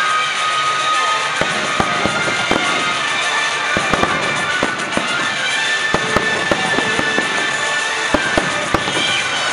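Aerial firework shells bursting in a rapid, irregular string of bangs and crackles, with music playing underneath.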